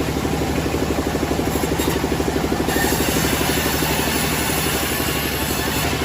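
Engine running steadily with a fast, even beat.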